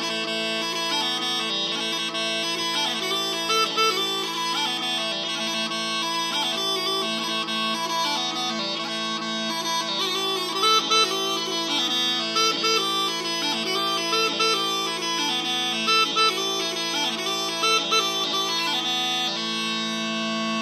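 Mouth-blown Piper's Choice Scottish smallpipes playing a tune: the chanter moves through a quick melody over the steady hum of the drones, with a few short higher notes standing out, and settles on one long held note near the end.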